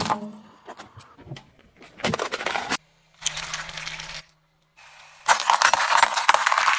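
Objects cracking and crunching under a rolling car tyre, in several separate crushes with short pauses between them. The loudest is a long crackling full of sharp snaps in the second half, as brittle plastic breaks into pieces.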